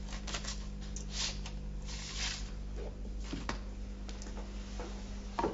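LP record sleeves being pulled out and handled, a series of short papery scrapes and rustles.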